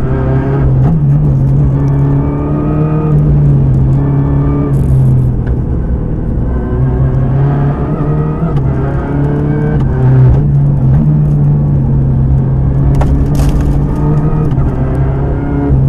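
Renault Clio R3T rally car's turbocharged four-cylinder engine, heard from inside the cabin, revving hard and dropping back again and again as the car is driven flat out through the gears. A few short sharp knocks cut in about five seconds in and again near the end.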